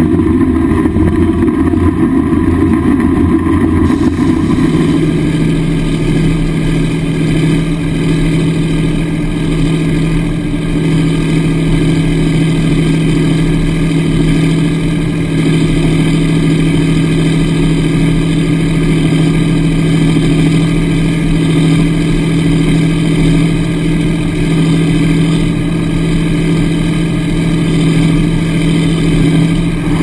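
Large articulated four-wheel-drive tractor's diesel engine running steadily under load while pulling a plough through a field. The engine note shifts about four seconds in, then stays even.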